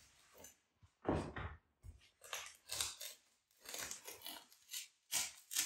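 Utility knife cutting through polyethylene foam damper tape at the foot of a wall, in a series of short, irregular slicing strokes.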